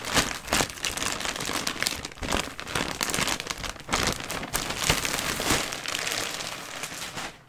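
Clear plastic wrapping crinkling and crackling as it is pulled and bunched by hand, an irregular run of crackles that stops near the end.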